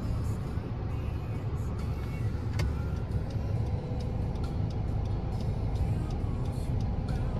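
Steady low road and engine rumble of a car being driven, heard from inside the cabin.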